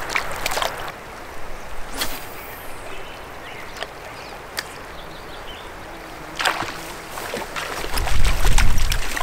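Water of a small meadow creek with a few sharp ticks, then about eight seconds in a hooked trout splashing at the surface, the sound getting louder and heavier.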